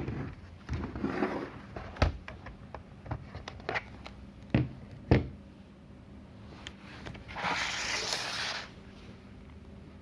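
Handling noises: a series of sharp clicks and knocks, then a scraping noise lasting about a second and a half near the end.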